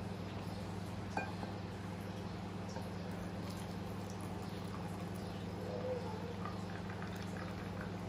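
Milk poured from a saucepan into a glass over ice cubes, a faint trickling splash, under a steady low hum. A light click about a second in.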